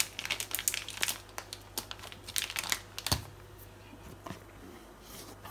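Plastic flour bag crinkling and rustling as it is handled and poured from, a dense run of crackles for about three seconds, then a single knock, after which it goes quiet.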